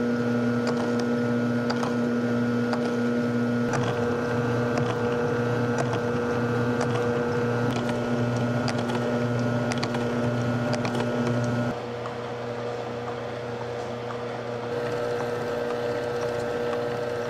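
Electric motor and kitchen-mixer gear drive of a homemade reciprocating friction test rig running steadily, a hum with scattered light clicks as the loaded cart slides back and forth. About twelve seconds in the sound drops a little in level.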